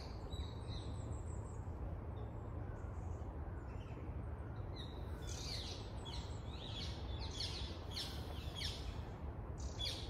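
Parakeets calling: a quick run of short, high, falling calls that starts about halfway through and keeps going, over a steady low rumble.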